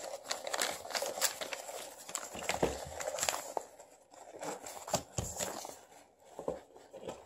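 Paper and plastic being handled close by: irregular small crackles, crinkles and taps, with short lulls.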